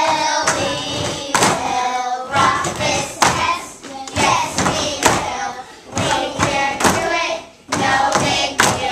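A class of young children singing a song together in unison, with steady thumps about once a second keeping the beat.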